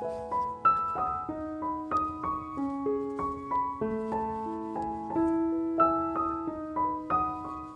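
Background piano music: a slow melody of single notes, each struck and fading, over a lower line of held notes.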